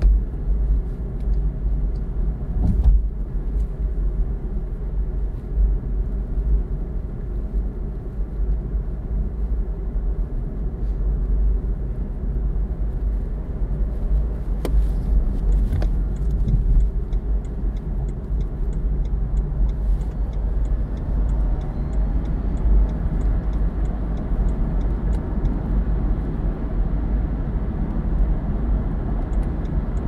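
Steady tyre and road rumble with wind noise inside the cabin of a BMW i3 electric car cruising at motorway speed, heavy in the low end. A couple of short knocks cut through, about three seconds in and near the middle.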